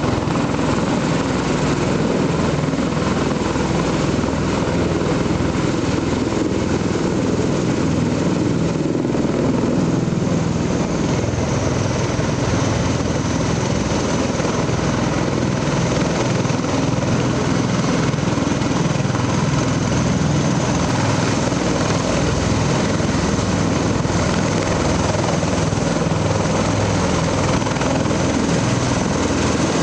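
MV-22 Osprey tiltrotors running, their proprotors making a loud, steady, pulsing rotor beat as they hover and land. A high whine joins about twelve seconds in.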